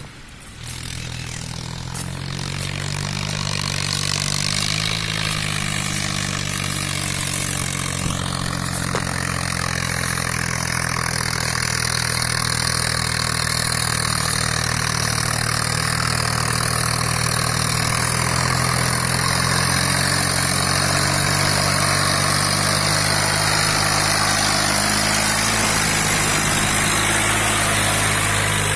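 Swaraj 923 tractor engine running steadily under load while pulling a tillage implement through field soil. It grows steadily louder as the tractor approaches, and is loudest near the end as it passes close by.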